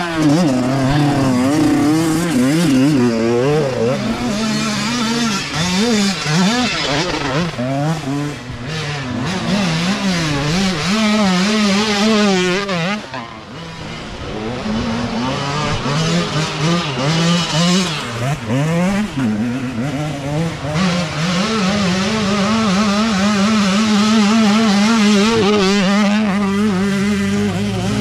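Youth dirt bike engines revving up and down as riders pass close by, several bikes in turn, the pitch rising and falling with the throttle. The sound drops off briefly about halfway through, then a steadier engine note holds over the last few seconds as more bikes come up.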